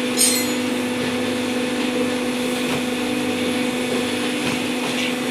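Hydraulic power pack of a waste-paper baling press running with a steady hum, with a brief high-pitched sound about a quarter second in.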